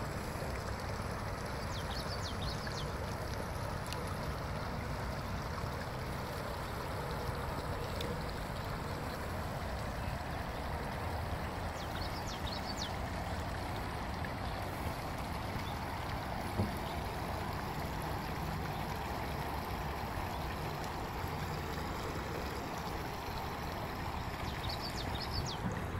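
Steady rush of a shallow creek running over rocks, with a low rumble underneath. Brief high chirps come three times.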